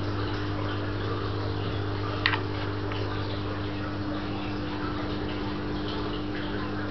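Steady mains hum of running aquarium equipment (pumps and filtration) under a constant water hiss, with one brief metallic clink about two seconds in.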